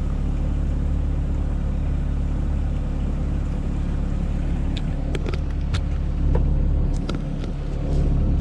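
Sherp amphibious ATV's diesel engine running steadily with a low drone among broken river ice. From about five seconds in, a series of sharp knocks and clicks sounds as ice chunks strike the vehicle.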